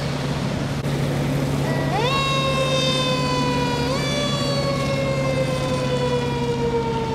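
Fire engine siren sounding about two seconds in: its pitch jumps up, sags slowly, jumps up again around four seconds and keeps slowly falling. Underneath are a steady low engine drone and the hiss of hose streams.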